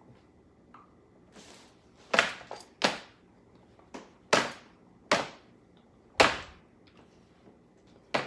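About seven sharp slaps or thuds at irregular intervals, each dying away quickly.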